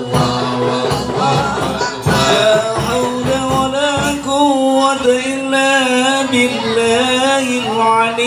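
Islamic devotional singing (sholawat) with drum accompaniment. Drum strokes run under the voices for about the first half, then stop, leaving one voice singing a long, wavering, ornamented melodic line.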